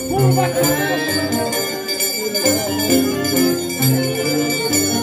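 Festival music playing: held notes over a bass line that steps from note to note, with high ringing tones throughout.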